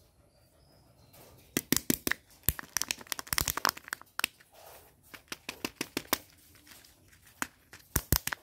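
Plastic surprise-egg shell crackling and clicking under the fingers as its sealing strip is torn off and the two halves are pulled apart: a dense run of sharp crackles, a few scattered clicks, then a quick cluster near the end.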